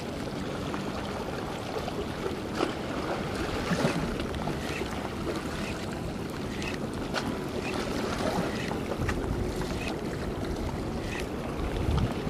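Steady wash of sea waves and wind against a concrete breakwater, with a few small clicks scattered through it.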